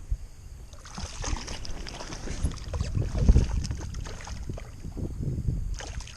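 Wind gusting over the microphone in an uneven rumble, with small waves lapping and slapping against a kayak's hull.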